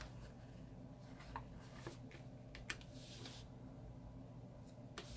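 Faint handling of paper planner pages and sticker sheets: soft rustling with a few light ticks.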